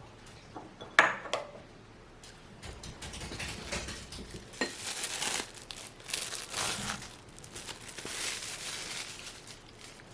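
Kitchen handling sounds while preparing food: a sharp clink of a dish or utensil about a second in, then several seconds of irregular scraping and rustling.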